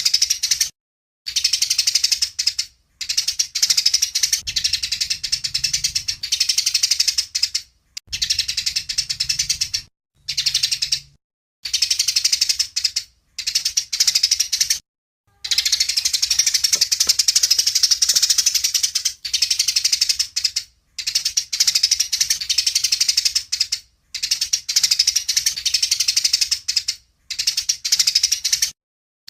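A songbird's rapid, high-pitched chattering trill, delivered in phrases of one to three seconds. The phrases cut off abruptly into short silences between them.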